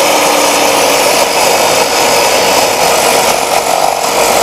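A TNT TC-1040L 10-inch miter saw, its blade tilted to a 45° bevel, runs steadily at full speed and cuts through a block of wood.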